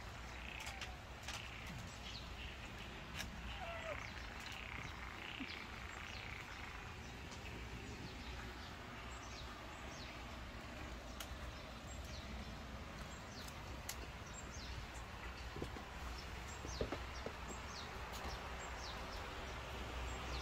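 Outdoor ambience: small birds chirping, with many short, high chirps scattered throughout, over a steady low background hum.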